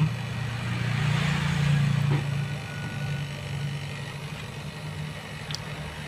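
Refrigerator compressor running, a steady low hum that swells slightly about a second in. It has been left running after flushing the system with LPG to shake loose leftover rust.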